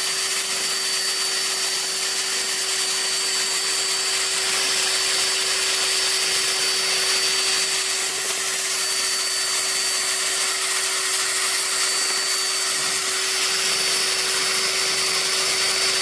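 Electric drill running at a steady speed, spinning a paint-mixer paddle in a bucket of deck stain to stir it, with a steady motor whine.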